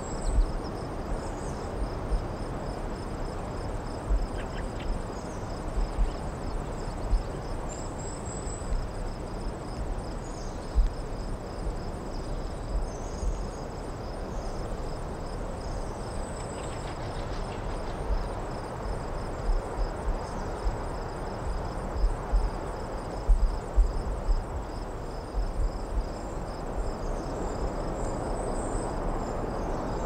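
Crickets chirping in a steady pulsing trill, with a few short bird chirps over a constant low rumble of distant traffic. Occasional low thumps from wind on the microphone.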